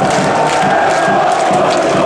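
Large crowd of football supporters chanting in unison, loud and steady.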